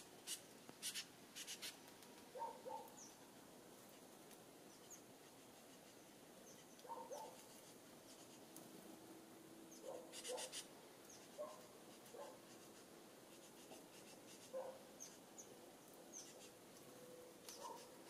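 Faint outdoor quiet broken by scattered short animal calls, often in pairs every few seconds, and a few brief high scratchy rattles near the start and about ten seconds in.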